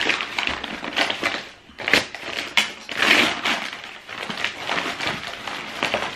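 Brown paper wrapping and a plastic bag crinkling and rustling in irregular flurries as they are handled and pulled open by hand to unwrap a pair of shoes.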